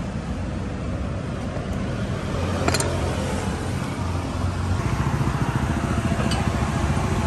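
Steady road traffic rumble, with a sharp click about a third of the way in and a fainter click near the end.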